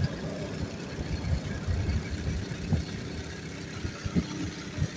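Fishing boat's motor running at low speed, an uneven low rumble.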